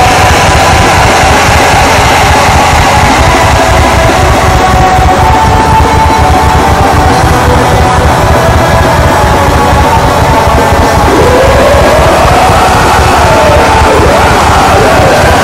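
Black metal song recording: a loud, unbroken wall of distorted band sound. A harsh yelled vocal line that glides up and down comes in about eleven seconds in.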